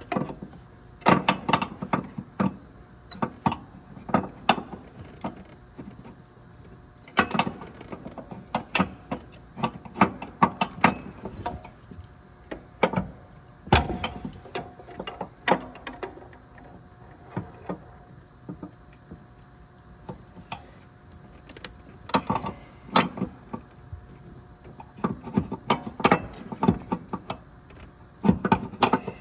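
Irregular metal clanks, clicks and knocks of a pry bar and hand tools working against the engine. They come in clusters with short pauses between.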